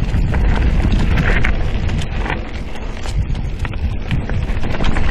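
Mountain bike rolling fast down a dry dirt singletrack: a constant low tyre-and-trail rumble with an irregular run of rattles and knocks from the bike over bumps.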